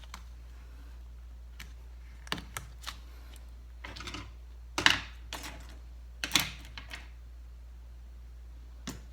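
Hard objects clicking and clattering as tools and laptop parts are handled on a workbench: a series of short sharp knocks, the loudest about five and six and a half seconds in, over a steady low hum.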